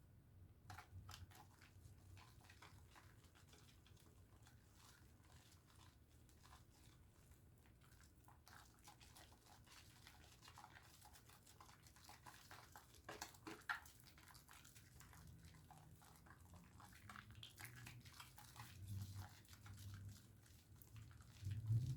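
Faint, irregular wet crackling and squishing of a pink Dove soap bar being lathered, with one louder crackle about halfway through.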